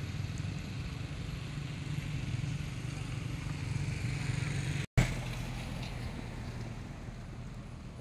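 A motor vehicle's engine running with a steady low hum. About five seconds in the sound drops out for an instant and comes back with a sharp click.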